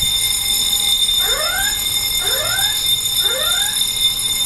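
Building fire alarm sounding for an evacuation: short rising whoop tones repeating about once a second over a steady high-pitched tone. The whoops start about a second in, three of them in all.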